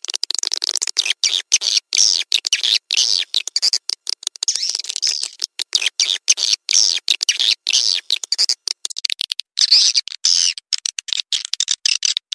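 Swiftlet lure-call recording (suara panggil) of the kind played from swiftlet houses to attract birds: dense, high twittering chirps cut by many short, abrupt gaps.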